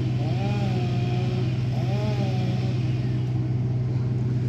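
A steady low hum, with faint wavering tones that rise and fall over it in the first half.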